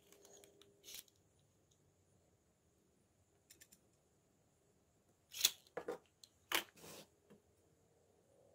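Small handling sounds of marking out a Douglas fir block: pen strokes scratching on the wood and a tape measure and steel rule being handled on the bench. The loudest part is a cluster of sharp clicks and scrapes about five to seven seconds in.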